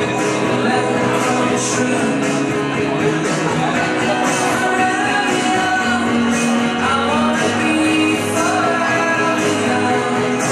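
A song with singing and a steady drum beat, played over loudspeakers.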